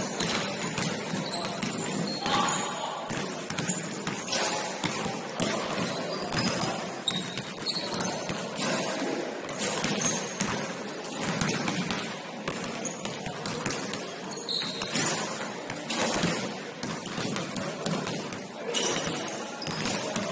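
Basketball being dribbled and bouncing on a gym floor during a game, a run of sharp irregular thuds, with players' voices calling out.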